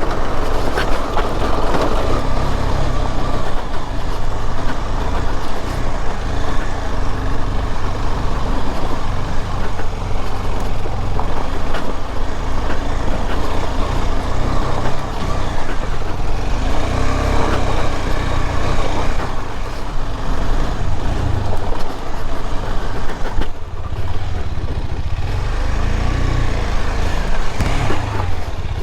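KTM 250 Adventure's single-cylinder engine running as the motorcycle rides over a rocky off-road track, the wheels bumping and rumbling over the stones.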